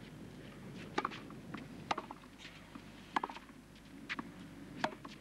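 Tennis ball struck by rackets and bouncing on a clay court during a rally: five sharp pops, about a second apart, over a low crowd hush.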